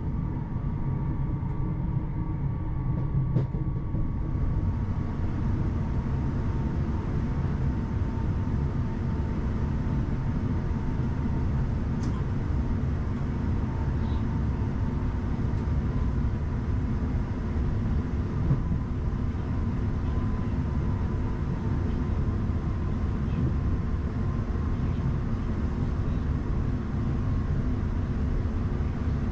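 Class 331 electric multiple unit running along the line, heard from the cab: a steady rumble of wheels on track with a faint steady whine above it and the odd light click.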